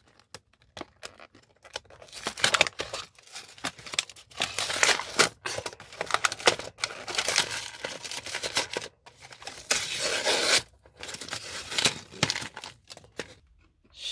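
Toy packaging being torn and crinkled by hand in irregular bursts as a figure is forced out of its box, with short pauses between efforts.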